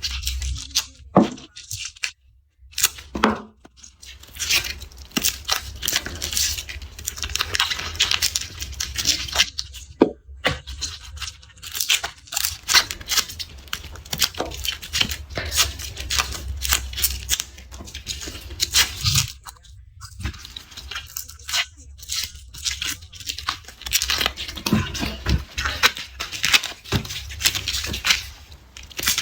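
Dry papery garlic skins being peeled and torn off the cloves close to the microphone: dense, irregular crisp crackling and rustling, with a few short pauses.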